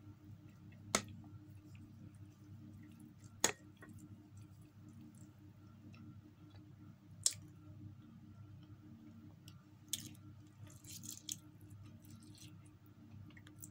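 Close-up eating sounds of a person chewing and slurping instant noodles, over a faint steady hum. Three sharp clicks stand out, about a second in, at three and a half seconds and at about seven seconds, and a short run of slurping noises comes near the end.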